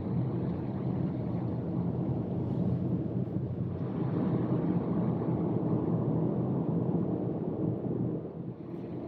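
A car driving along a city road: steady road and tyre noise with engine hum, dipping slightly near the end.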